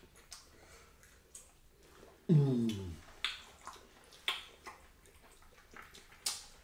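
Eating sounds from fufu and okra soup eaten by hand: a handful of short, separate mouth smacks and clicks. A little over two seconds in there is a brief low voiced sound that falls in pitch.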